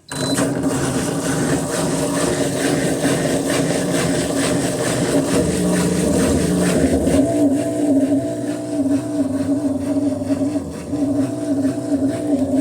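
Electrolux LTD11 washing machine's Roca drain pump switching on and running with a loud, wavering hum, the noisy pump the machine is fitted with.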